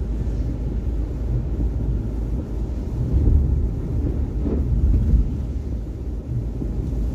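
Steady low rumble of a car driving: road and engine noise, with no distinct events.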